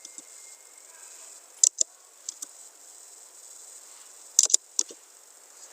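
Sharp computer-input clicks over a steady faint hiss. There is a pair about a second and a half in, two fainter clicks soon after, and a louder cluster of three near four and a half seconds.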